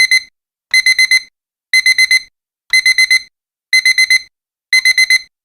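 Digital alarm clock beeping: a high beep four times in quick succession, the group repeating about once a second, sounding as the nine-minute countdown runs out.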